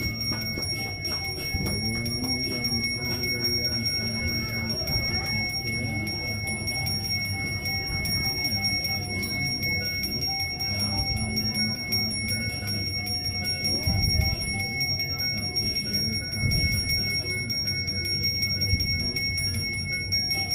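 A Balinese priest's genta, a handheld bronze ritual bell, rung without a break, giving a steady, shimmering high ring. This is the bell sounded by the pemangku while reciting prayers over Yadnya offerings.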